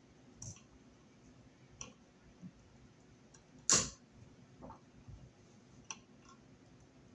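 Light, scattered clicks and ticks of pliers and stiff copper wires being handled, with one sharper, louder snap about halfway through.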